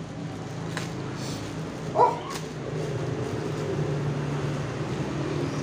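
A dog gives one short yip about two seconds in, over a steady low hum, with a few light crinkles of the plastic mailer bag being handled.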